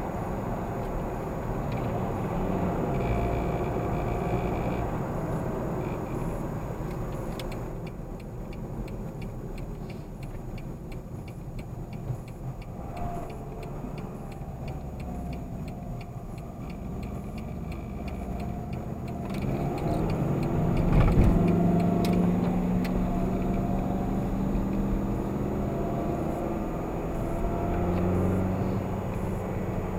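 Car driving on the open road, heard from inside the cabin: steady engine and tyre noise. About two-thirds of the way through it grows louder as the engine note rises, as under acceleration.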